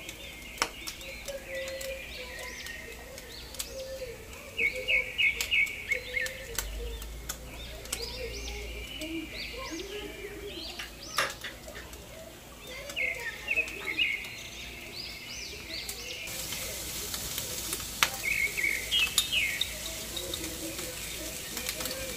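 Small birds chirping in quick repeated clusters, with a few sharp clicks in between.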